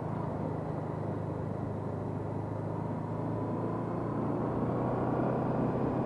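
Honda NT700V Deauville's V-twin engine running at a steady pace while riding, with road and wind noise, heard from a helmet camera.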